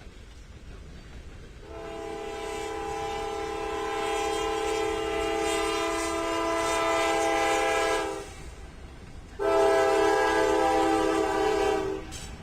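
Train locomotive air horn sounding a long blast of about six seconds, then a second, shorter blast a moment later, over a low rumble.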